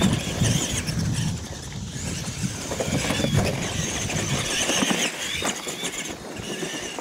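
Radio-controlled monster trucks running down a dirt track. A high motor and gear whine rises and falls several times over a low rumble.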